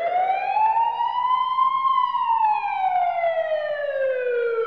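A siren wailing in one slow sweep: the pitch rises for about the first two seconds, then falls gradually.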